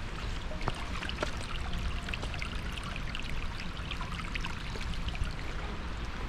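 Running water: a steady rush with many small splashes and drips trickling through it.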